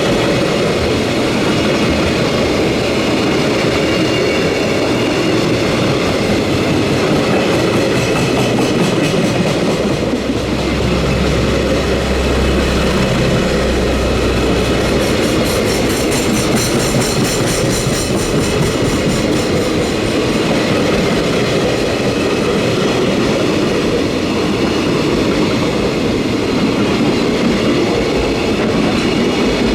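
Freight train wagons rolling past at speed, a loud, steady rumble of steel wheels on rail, with runs of rapid clacking as the wheels cross the rail joints.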